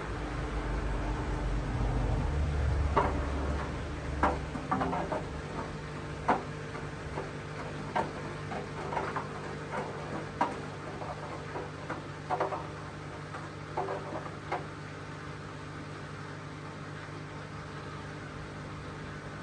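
Hoover DXOA610AHFN-80 washing machine running mid-cycle: a steady hum with a low rumble in the first few seconds, and scattered clicks and knocks that stop about fifteen seconds in.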